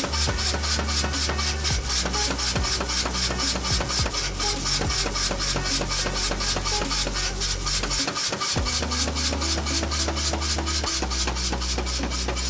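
Power hammer rapidly striking a red-hot mild steel bar on its anvil, about five blows a second, over the steady low hum of its motor, which drops out briefly about two-thirds of the way through. The blows are drawing out and flattening the leaf-shaped end of a bottle opener.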